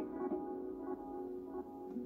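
Quiet guitar music playing from a vinyl record on a turntable: a few soft picked notes over lingering held tones.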